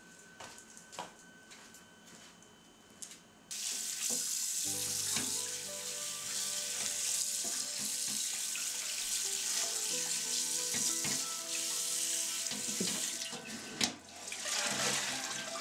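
Tap water running into an enamel basin while a piece of pork is rinsed and rubbed by hand. The water starts suddenly about three and a half seconds in, after a few faint clicks, and dips briefly with a sharp click near the end.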